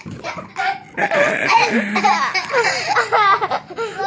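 Children laughing, with high-pitched giggles in quick repeated bursts.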